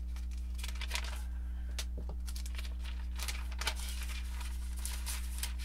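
Bible pages being leafed through: a run of irregular papery rustles and soft swishes, over a steady low hum.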